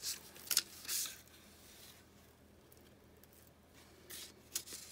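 Paper handling: a card ticket slid out of a paper pocket in a handmade journal, with a few short crisp rustles near the start and again near the end, and little in between.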